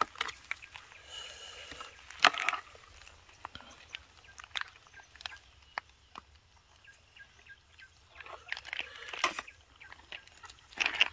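Crackling and rustling of dry leaves and twigs with scattered knocks, as someone moves over leaf litter and undergrowth. The loudest crackles come about two seconds in and again near the end, with a few faint high chirps in between.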